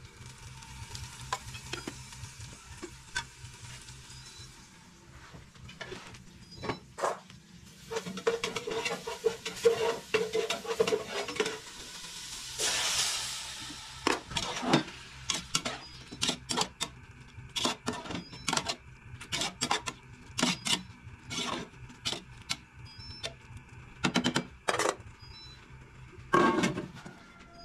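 Metal slotted skimmer clinking and scraping against a steel cooking pot as chopped tomatoes are stirred on a gas stove, with a low sizzle. The clinks come irregularly, thickening in the second half.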